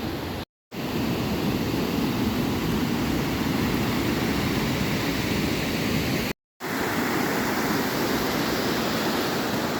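Waterfall rushing: a steady, even rush of falling water, broken twice by a sudden brief silence, about half a second in and about six seconds in.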